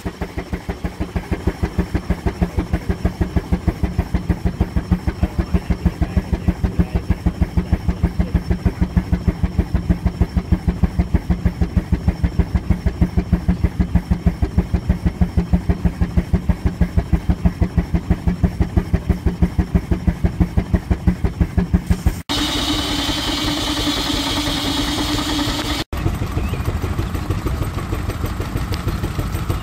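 Steam traction engine running, its exhaust beating in a fast, even rhythm of several puffs a second. About 22 seconds in it gives way to a steadier running sound with hiss.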